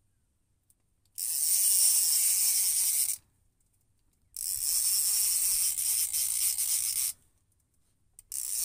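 Multiplier fishing reel ratcheting while a hooked fish is played: two spells of steady ratcheting buzz, about two and three seconds long, with a brief third one at the very end and near silence between them.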